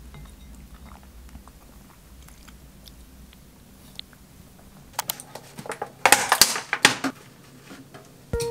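Faint spoon-and-eating sounds at first. About halfway through come a series of knocks and a short loud rustle as strawberries are handled from a plastic punnet and dropped into a stainless-steel strainer. Light music comes in near the end.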